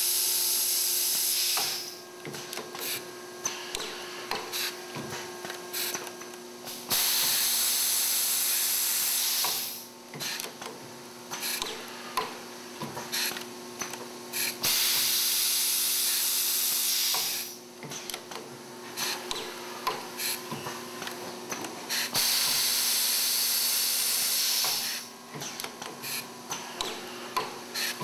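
Electroimpact semi-automatic C-frame riveting machine working through repeated cycles about every seven seconds. Each cycle has a loud rush of air hiss lasting about three seconds, then a run of sharp pneumatic clicks and knocks as the head indexes and a rivet is fed and set. A steady machine hum runs underneath.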